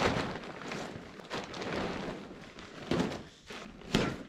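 Empty woven-plastic fertilizer big bag rustling and swishing as it is dragged and rolled up on dirt, with a few thumps and footsteps, the sharpest near the start, about three seconds in and about a second later.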